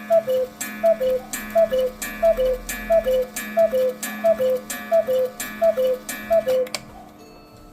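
Cuckoo clock calling the hour: the falling two-note cuckoo call, with a click at each call, repeated about ten times at an even pace of a little more than one call a second.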